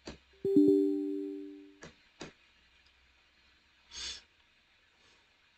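Computer chime as a software installer launches: a few low notes struck almost together, ringing out and fading over about a second and a half. Two soft clicks follow, then a brief breathy hiss about four seconds in.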